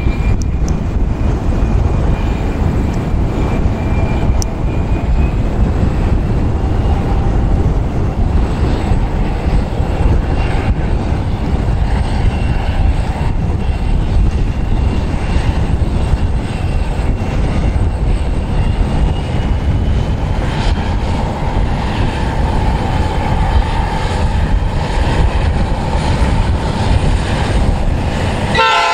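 Strong wind buffeting the microphone, with the distant drone and whine of an approaching grain train's three diesel-electric locomotives, two 81 class and a BL class, growing louder over the last several seconds.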